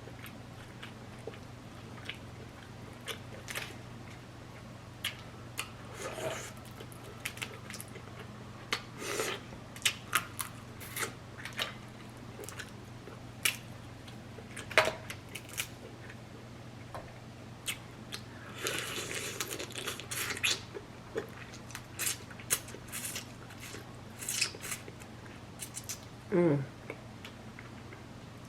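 Close-miked eating of a seafood boil: wet mouth clicks, smacks and chewing of corn and shellfish, with a denser run of crunching and slurping partway through and a brief murmur of the eater's voice near the end, over a faint steady hum.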